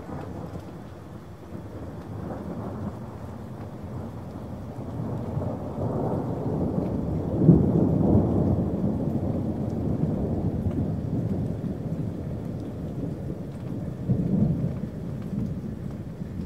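Rain with rolling thunder. A long low rumble builds from about five seconds in and peaks around the middle, and a second, shorter swell of thunder comes near the end.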